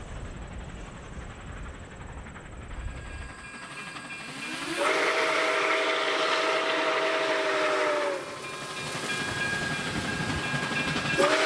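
Nickel Plate Road 765, a 2-8-4 Berkshire steam locomotive, blowing its steam whistle: one long blast of several notes sounding together, sliding up in pitch as it opens, then a second blast starting near the end. Before the whistle, passenger cars rumble past on the track, a low rumble that stops about three seconds in.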